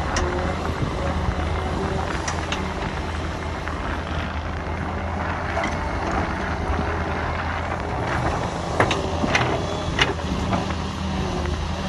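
Solar 130 hydraulic excavator running steadily while digging, with sharp knocks from the bucket and linkage, several close together about nine to ten seconds in.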